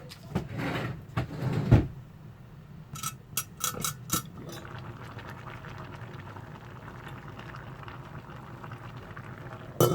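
Pot and utensil clatter: a few knocks, then several bright metal clinks in the first four seconds or so. After that, a steady, low bubbling of a pot of vegetables in coconut milk being left to boil.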